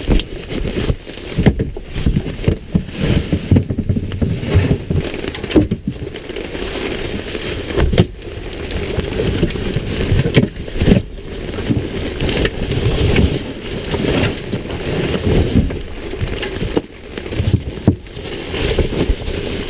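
Gear bags and boots being handled and set down in a vehicle's cargo area: fabric rustling and scraping, with irregular knocks and thumps.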